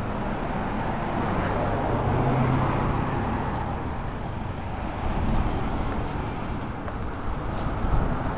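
A car driving past close by, its engine hum and tyre noise swelling about two seconds in and then fading, over steady street traffic.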